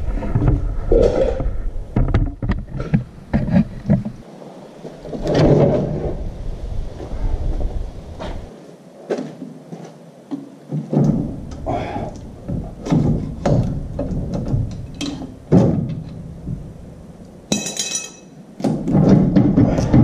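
Scattered metal knocks and clunks as the removable third member (differential carrier) of a Nissan Xterra's rear axle is worked loose and pulled out of the axle housing, with a brief high ringing near the end.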